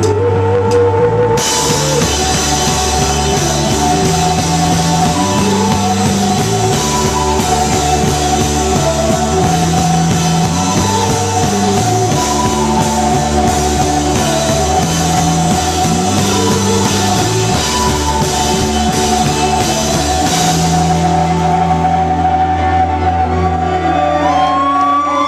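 A live rock band playing an instrumental passage: drum kit, bass and electric guitar chords changing every second or two, with no singing. About three-quarters of the way through, the cymbals stop and the chords ring out.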